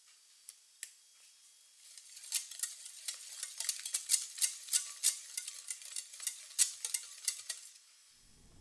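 Wire balloon whisk beating a wet egg-yolk and mashed-banana batter in a glass bowl, its wires ticking against the glass about four times a second. The whisking starts about two seconds in and stops shortly before the end.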